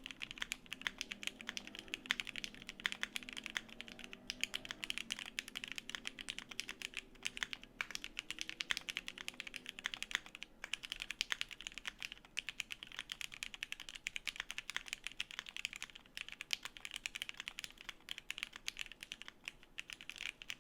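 Fast continuous typing on a Cannonkeys Brutal60 mechanical keyboard. It has lubed new-old-stock vintage Cherry MX Black linear switches with 67 g springs, an FR4 plate in a burger-mounted aluminum case, and GMK keycaps. The keystrokes come as a dense, uneven stream of clacks and cut off suddenly at the end.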